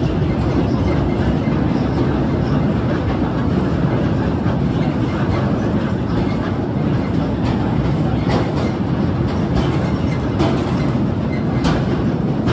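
Narrow-gauge sugar-railway tourist train running slowly, heard from aboard: a steady low rumble of wheels and running gear, with a few sharp clicks from the rails in the second half.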